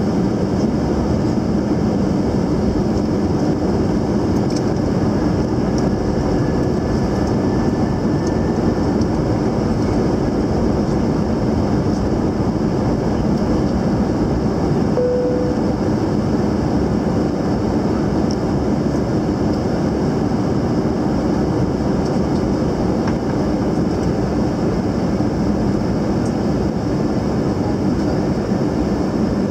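Steady engine and airflow noise of an Airbus A321neo on final approach, heard from inside the cabin over the wing: a constant low drone that does not change.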